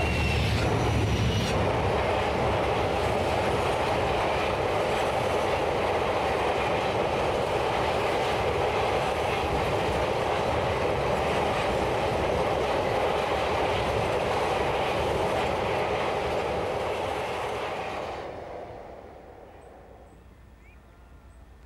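Class 56 diesel locomotive passing close, its V16 engine rumbling low at the start, followed by a long train of empty steel open box wagons rolling past with a steady wheel rumble and rattle. The noise dies away a couple of seconds before the end.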